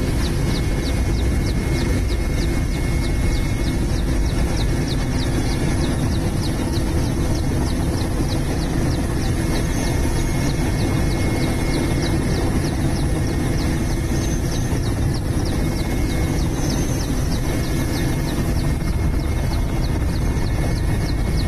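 Helicopter noise heard from on board: a steady, loud engine and rotor drone with a fast, even ticking beat from the rotor.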